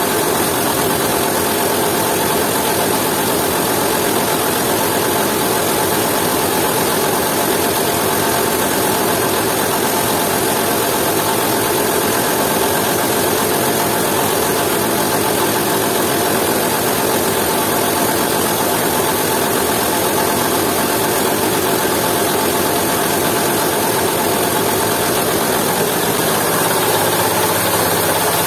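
Jiangdong 8 hp single-cylinder diesel engine running steadily under load, belt-driving a coffee mill that is grinding dried coffee.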